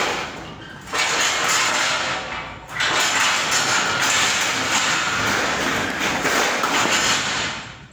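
A tall metal A-frame ladder being moved across the floor, giving a loud, steady scraping and rattling noise. It starts about a second in, breaks off briefly, then carries on until just before the end.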